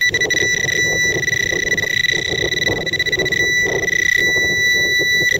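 Metal-detecting pinpointer probe sounding a steady, high-pitched alarm tone while it is held in the dug hole, a sign that it is picking up a metal target in the soil.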